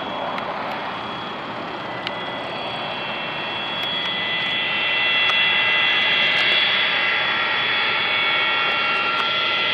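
Boeing 727-200's Pratt & Whitney JT8D turbofans running at taxi power as the trijet turns onto the runway: a steady rush with a high whine on top. It grows louder about halfway through as the jet swings round to face the listener.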